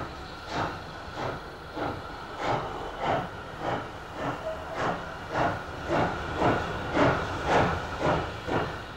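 Midland Railway Johnson 0-4-4 tank steam locomotive pulling away with a push-pull train: evenly spaced exhaust chuffs, a little under two a second, quickening and growing louder as it gathers speed, over a steady hiss of steam.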